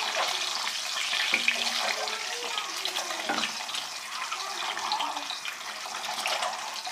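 Boiled eggs sizzling and crackling as they fry in hot ghee in a pan, a steady spitting hiss with a couple of light knocks.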